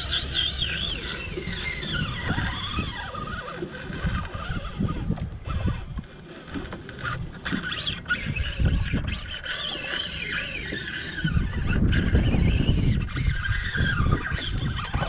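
Fishing reel drag squealing in wavering, rising and falling pitches as a hooked shark takes line, over a low rumble of wind and water noise that swells near the end.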